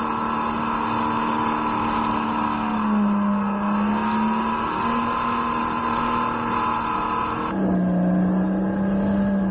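Go-kart engine running at speed on a track, its pitch dipping and rising again as the throttle changes. The sound changes abruptly about three-quarters of the way through to a steadier, lower note.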